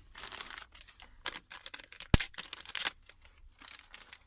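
Small clicks, taps and light rustling of phone parts and tools being handled on a workbench, with one sharp click about two seconds in.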